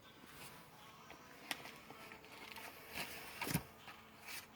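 Faint handling of carded toy cars in plastic blister packs: a few sharp clicks and light rustles, the loudest, with a dull knock, about three and a half seconds in.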